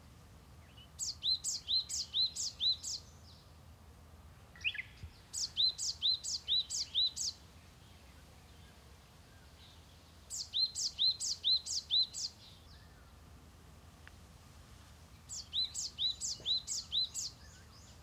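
A small songbird singing the same phrase four times, a few seconds apart: each phrase is a quick run of six or seven high, sharply falling notes lasting about two seconds.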